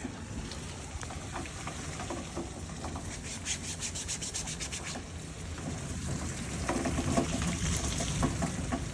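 Steady heavy thunderstorm rain, with a quick series of rubbing scrapes a few seconds in.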